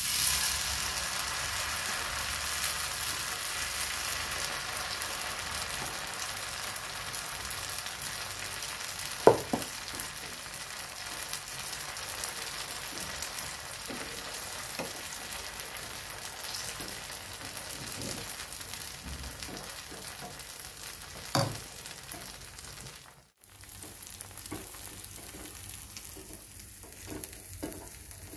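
Oats and moong dal chilla batter sizzling on a hot tawa as it is poured and spread with a ladle. The sizzle starts suddenly and slowly fades, with a few sharp knocks along the way, the loudest about a third of the way through.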